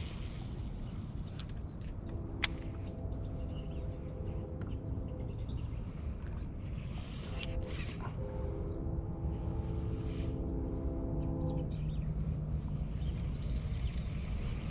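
Insects droning steadily at a high pitch over a low outdoor rumble. A whirring hum comes and goes in stretches of a few seconds as a baitcasting reel is cranked, and there is one sharp click a couple of seconds in.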